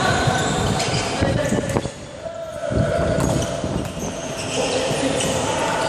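Volleyball rally on an indoor court: several sharp thuds of the ball being hit and of players' feet on the floor, with short high squeaks and players' calls.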